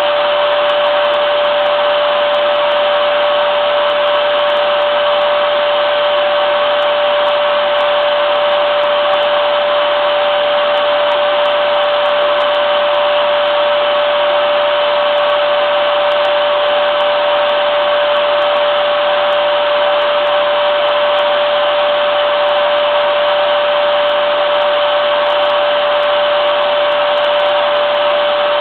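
Vacuum cleaner motor running steadily, a constant even whoosh with a steady whine near the middle of its pitch.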